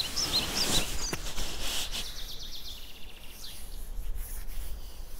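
Hands rubbing over a cotton T-shirt and bare forearm close to a clip-on microphone, a soft rustling with a couple of small clicks. A small bird chirps quickly several times in the first half second and faintly again later.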